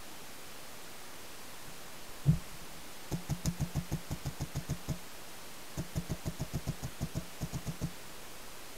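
Paintball marker firing: one louder single shot about two seconds in, then two rapid strings of about a dozen shots each, some six or seven pops a second. The marker's air tank is running low.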